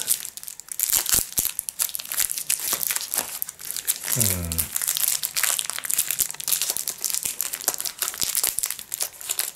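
Thin plastic wrapper of a Milka Tender cake bar crinkling and rustling in the hand as it is torn open and peeled back, in a dense run of irregular crackles. A short falling vocal sound comes about four seconds in.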